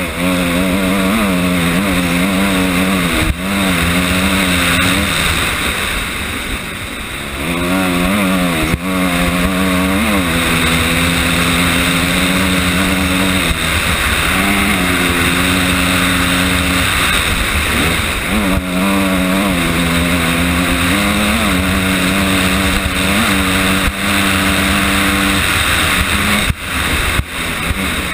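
Honda CRF250R's single-cylinder four-stroke engine at full race pace, revving up and dropping back again and again as the rider works the throttle and gears. A constant rushing noise runs under it, and several sharp knocks break in along the way.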